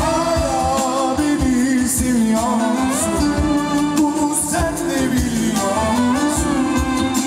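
Live concert music: a man singing a wavering melody into a microphone over band accompaniment with a sustained low note and a beat.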